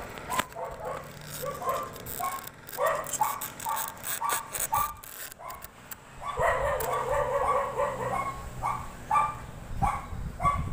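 A dog barking and yipping over and over in short calls. Between them come sharp clicks and knocks, most of them in the middle of the stretch, as metal parts and seals are handled on the table.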